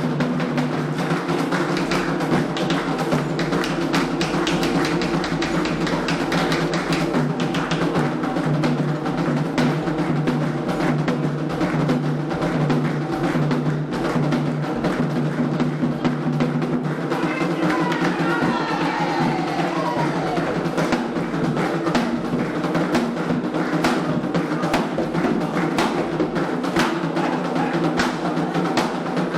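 Candomblé hand drums (atabaques) playing a dense, steady ceremonial rhythm for Xangô.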